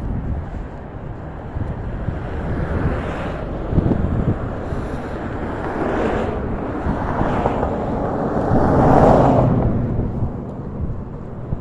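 Road traffic with wind rushing on the microphone, in swells; a passing vehicle grows loudest about nine seconds in and then fades.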